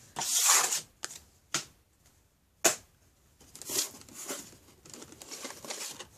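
Cardboard and blister-carded die-cast cars being handled out of a shipping case: a sliding rustle, a few sharp clicks, then scattered light crinkling of card and plastic.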